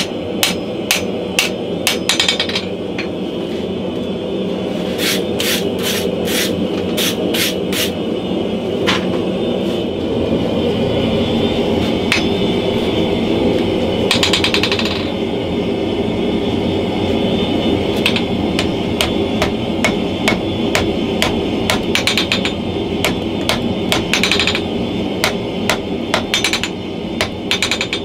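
Hand hammer striking red-hot leaf-spring steel on an anvil, in quick runs of blows about three a second with short pauses between.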